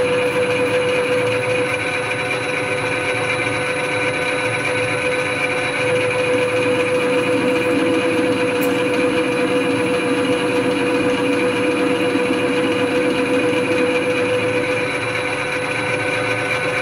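Metal lathe running in back gear, its gear train giving a loud, steady whine, while a knife tool takes a light facing cut across the end of a hexagonal steel workpiece spinning in a four-jaw chuck.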